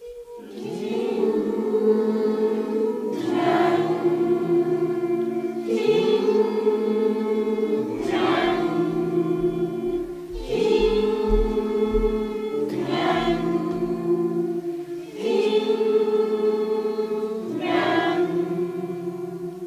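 A group of voices chanting the syllables "tin-nyan" in long held tones, four times over, each time a higher note on "tin" dropping to a lower note on "nyan". This is the healing vocal exercise sung on a single exhale.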